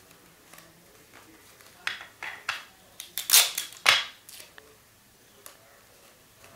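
Rolled paper tubes being handled and fitted together: a quick series of short, sharp paper rustles and crinkles, bunched between about two and four and a half seconds in.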